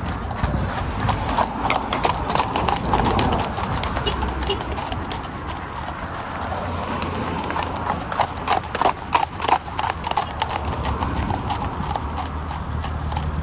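Horses' hooves clip-clopping on asphalt as several horses pull carriages along a road, an irregular run of overlapping hoof strikes that grows loudest and thickest a little past the middle.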